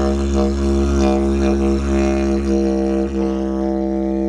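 Didgeridoo playing one continuous low drone, with rhythmic pulses about three times a second.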